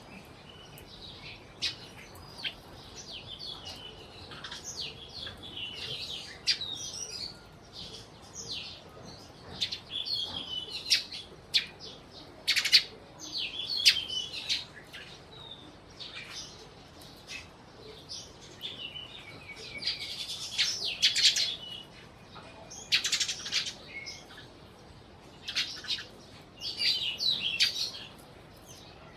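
A group of sparrows chirping: short, high chirps in quick clusters, several birds overlapping, with brief lulls between bursts.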